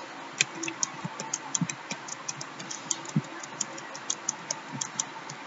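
Computer keyboard typing: irregular single key clicks, several a second, as numbers are entered one by one, each followed by Enter.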